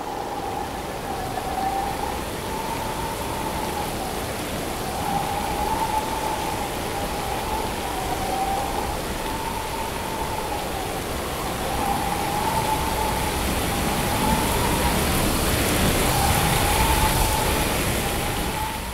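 Steady rain and storm noise, with a high hum running through it that wavers slowly up and down in pitch about every two seconds. It grows louder about two-thirds of the way through.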